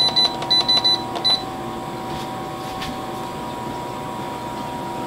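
Induction hob's control panel beeping: a quick run of short, high beeps in the first second and a half as the timer is set. Under it, the hob hums steadily and a lidded frying pan simmers.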